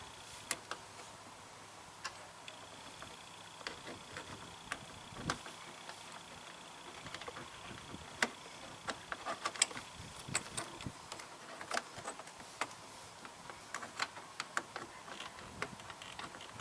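Irregular light clicks and taps of a screwdriver working a metal retaining clip onto the edge of a plastic fender flare, while fitting a mud guard.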